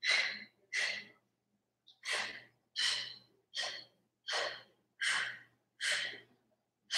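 A woman breathing hard in a steady rhythm, short forceful breaths about every three-quarters of a second, from the effort of pulsing one knee into her chest from a plank.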